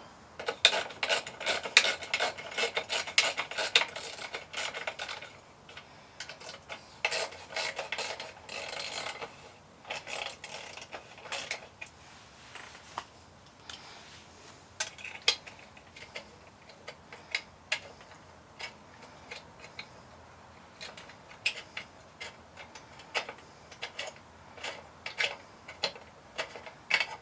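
Socket wrench clicking in bursts and small metal parts clinking as bolts are worked loose to take the exhaust off a push mower's engine. The clicking is thickest in the first few seconds and again in the middle, then thins to scattered clinks.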